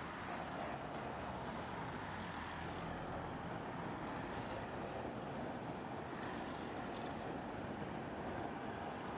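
Steady hum of distant road traffic, an even rushing noise with no distinct events.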